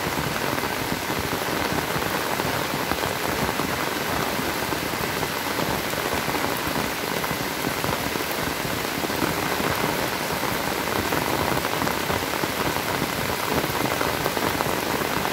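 Heavy rain pouring steadily onto a paved yard and puddles, a dense, even hiss of splashing drops that stays level throughout.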